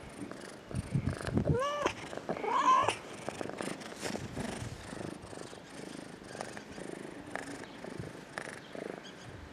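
A domestic cat giving two short meows in quick succession about two seconds in, with low purring around them.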